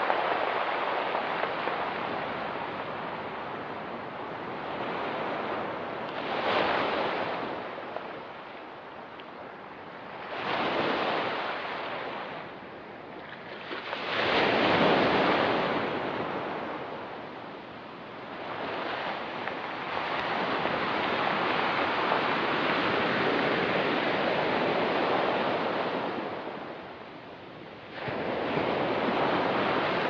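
Ocean surf breaking and washing up a rocky, pebbly beach, swelling and fading with each wave every few seconds, the loudest wave about halfway through and a longer steady wash later on.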